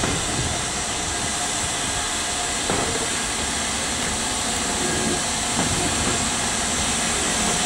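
Steam locomotive approaching at low speed on the adjacent track, with a continuous steady hiss of steam. A single sharp knock sounds a little under three seconds in.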